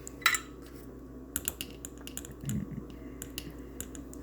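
Irregular light clicks and taps of small tools and parts being handled on a workbench during soldering, with one sharper click near the start.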